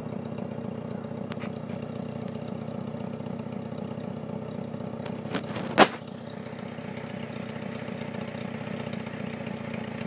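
A small dumper truck's BMC A-series four-cylinder Mini engine idling steadily. A single sharp knock comes a little before the six-second mark, and the engine runs slightly quieter after it.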